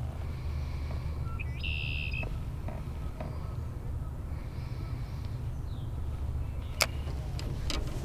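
Steady low rumble of wind and distant traffic. A short, high bird call sounds about two seconds in. A sharp click comes near the end.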